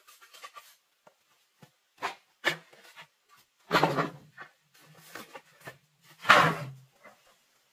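Hollow split bamboo pieces knocking and clattering together as they are handled: a few separate knocks with a short hollow ring, the loudest about six seconds in.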